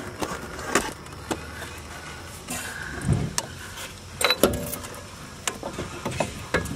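Scattered sharp metallic clicks and knocks as a front CV axle is worked free by hand and pulled out of the transaxle of a 2006 Lexus RX 400h. There is a dull thump about three seconds in and a cluster of clinks about a second later.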